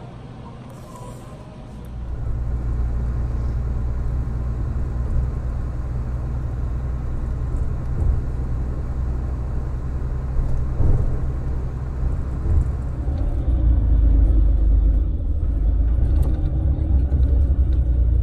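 Steady low rumble of a moving road or rail vehicle heard from inside, coming in about two seconds in after a quieter stretch and growing somewhat louder near the end.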